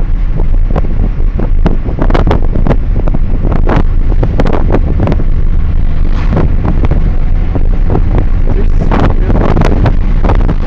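Heavy wind buffeting on the microphone over the low, steady rumble of a Lada Kalina under way.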